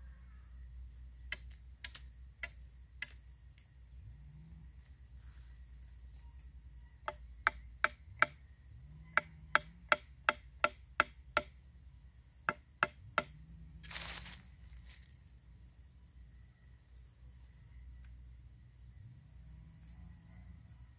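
Machete blade chopping at wood: about eighteen sharp strikes in short runs of three to seven, two to three blows a second, with a brief rustling burst about two-thirds through. A steady high insect drone runs underneath.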